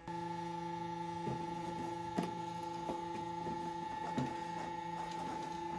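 Steady electrical hum made of several held tones, with a few light knocks and clicks over it.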